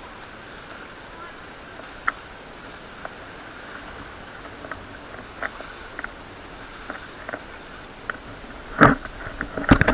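Steady background hiss with a few scattered short knocks and clicks, and a louder cluster of knocks near the end.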